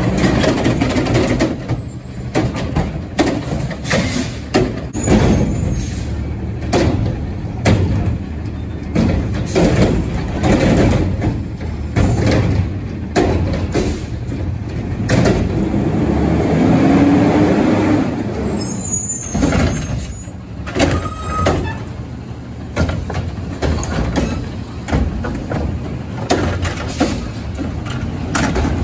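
Recycling truck running while carts are emptied into it: a steady engine rumble under repeated clanks and knocks of plastic carts and metal, with a brief rising whine partway through.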